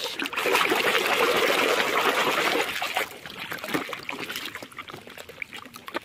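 A hand sloshing and scrubbing in a shallow tub of muddy water, washing a plastic toy car: steady splashing for about the first three seconds, then quieter dribbling with light clicks.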